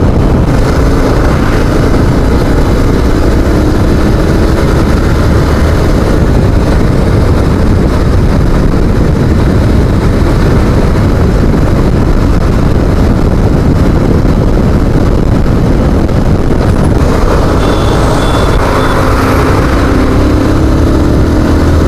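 Motorcycle engine running while riding at road speed, under a steady heavy rumble of wind on the microphone. The engine note rises as the bike accelerates, about a second in and again near the end.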